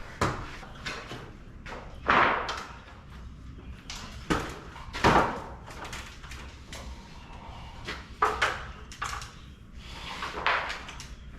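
Irregular knocks and clunks, about eight scattered over the stretch, the loudest about two and five seconds in.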